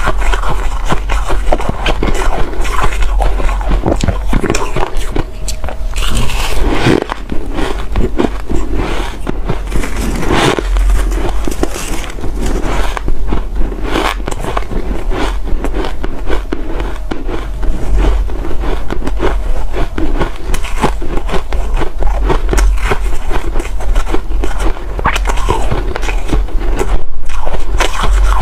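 Ice being bitten and chewed: a continuous, irregular run of loud crunches and cracks.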